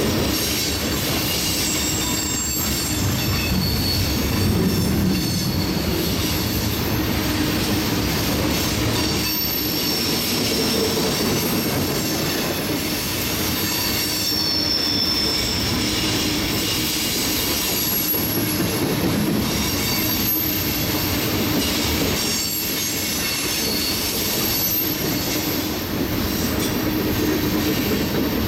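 Freight cars of a CSX mixed freight train rolling steadily past: a continuous rumble of steel wheels on rail, with thin, high wheel squeals coming and going.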